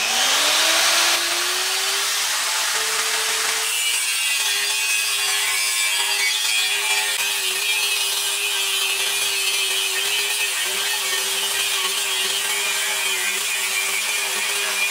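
Handheld electric angle grinder grinding the steel edge of a lathe bed, the disc rasping on the metal over a steady motor whine. The whine rises in pitch over the first two seconds, then holds with small dips as the disc bites.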